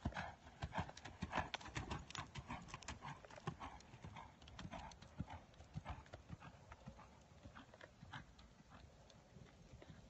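Hoofbeats of a two-year-old quarter horse running on loose arena dirt, a quick run of strides that are louder at first and fade as the horse moves away.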